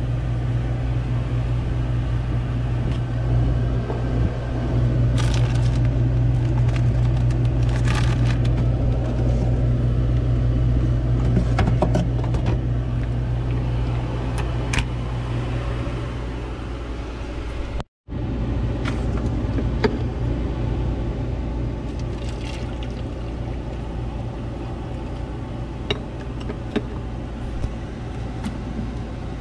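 Steady low mechanical drone of a boat's onboard machinery, with light clinks and knocks of things being handled in a small refrigerator.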